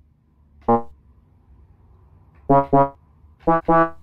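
A rooster pecking the keys of a small electronic keyboard, sounding short single notes: one about a second in, then two quick pairs near the end.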